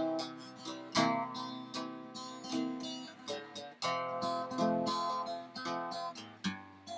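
Background music: acoustic guitar strummed and picked in a steady rhythm, with no singing.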